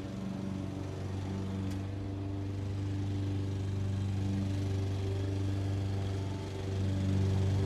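Lawn mower engine running steadily, its pitch and level wavering slightly and growing a little louder near the end, with the low whir of an electric fan under it.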